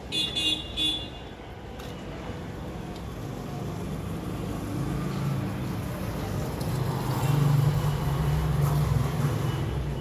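Street traffic: a vehicle horn honks three short times in the first second, then a vehicle's engine rises in a low hum as it approaches and passes, loudest about seven to nine seconds in.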